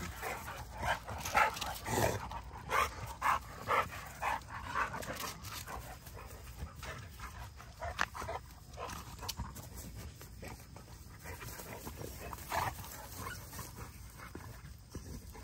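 Two XL bully pit bulls fighting, growling and yelping in short sharp bursts, packed close together for the first six seconds and sparser after, with one louder cry about twelve seconds in.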